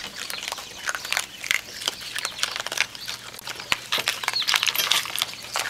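Raccoons crunching dry food and pawing it out of stainless steel bowls, heard as a dense, irregular run of crisp crunches and clicks.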